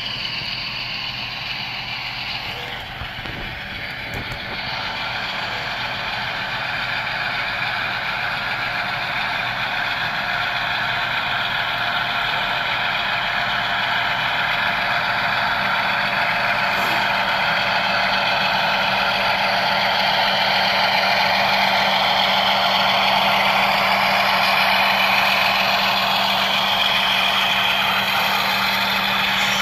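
Simulated diesel engine sound from the sound decoders of HO scale GE Evolution-series (GEVO) model locomotives running steadily and growing gradually louder as the locomotives come close, with a steady low hum underneath.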